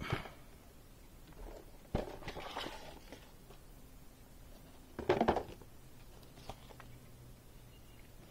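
Hands handling a plastic football visor and its packaging: a knock at the start, a sharp click about two seconds in followed by rustling, and a louder rustle and clatter about five seconds in.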